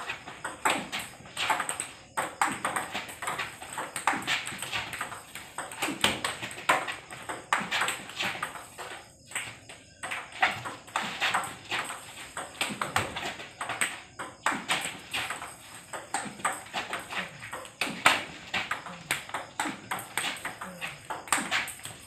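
Table tennis multiball drill: celluloid-type plastic balls clicking sharply on the table and off rubber-faced bats, several hits a second without pause, as a coach feeds spin serves and a player returns them.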